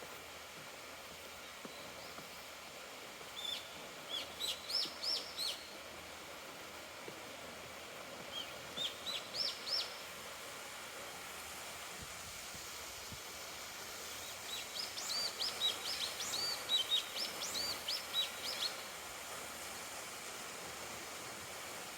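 A songbird singing three phrases of quick, high, arched notes, the last and longest about fifteen seconds in, over a steady background rush.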